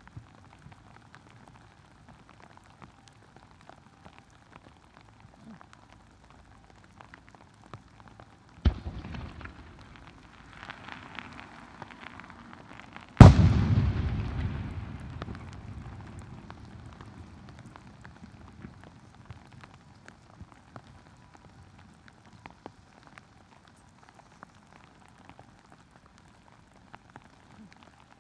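Steady rain pattering, broken by aerial firework shells: a sharp boom about nine seconds in followed by a few seconds of crackling, then a much louder boom about thirteen seconds in that rumbles and echoes away over several seconds.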